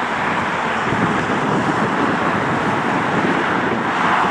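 Steady jet roar from a WestJet Boeing 737 MAX 8's CFM LEAP-1B turbofans as the airliner rolls along the runway, swelling a little near the end.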